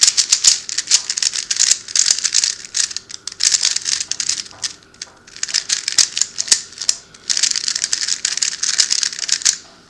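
Rubik's cube being scrambled: its layers turned fast in runs of rapid clicking and clattering, broken by a few short pauses.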